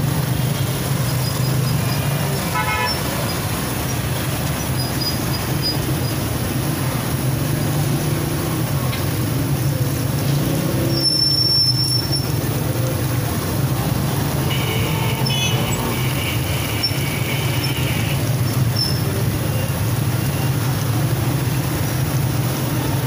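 Street-stall ambience: a steady low rumble of traffic and engines under the hiss of samosas deep-frying in a large karahi of oil. A vehicle horn sounds for a few seconds past the middle.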